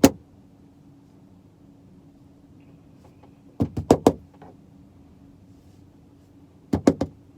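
Two quick clusters of sharp clicks and knocks inside a car, about three seconds apart, over a steady low hum.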